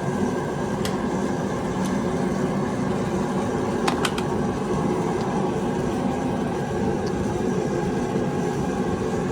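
A shop heater runs with a steady drone throughout. A few light clicks or taps come about one, two and four seconds in.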